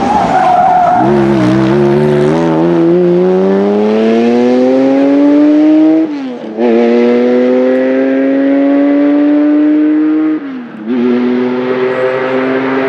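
Classic Porsche 911 rally car's air-cooled flat-six accelerating hard away, its pitch climbing through the gears with two quick upshifts, about six and about ten and a half seconds in. A brief tyre squeal comes right at the start.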